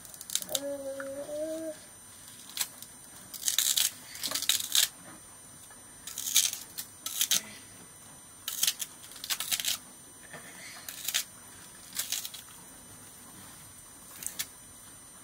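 Crisp, short cutting snaps as green vegetable stalks are sliced through with a curved sickle-like hand blade, about ten strokes at uneven intervals. A brief high voice-like call sounds in the first two seconds.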